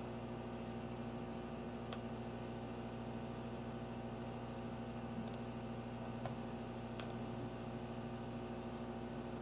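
Steady low electrical hum with a few faint, separate computer mouse clicks spread through it.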